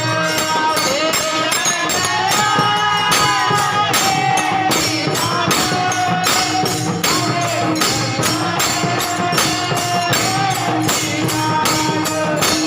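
Marathi kirtan music: a quick, steady beat of jingling hand percussion, about three strikes a second, under a long held melody line that glides between notes.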